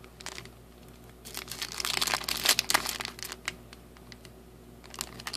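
Sealed trading-card booster pack wrapper crinkling as it is handled and flexed in the hands. There is a dense flurry of crackles starting about a second in, then a few more near the end.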